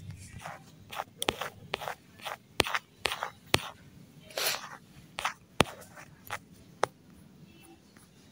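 A run of irregular sharp clicks and short scrapes, a dozen or so, that stops about a second and a half before the end.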